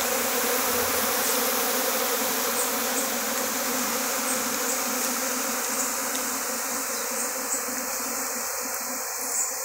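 A large crowd of honey bees buzzing in a dense, steady hum as they work over extracted honey frames, taking up the honey left in the combs. The hum grows a little fainter toward the end.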